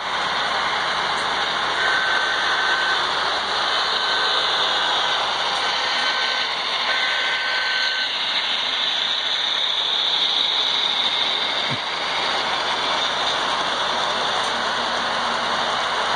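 A model diesel locomotive's sound decoder sounds a Hancock air whistle, as on New Haven diesels: four blasts of one steady tone, the first and last long, within the first half. Under it runs the steady sound of the model train running, decoder engine sound mixed with wheel and motor noise.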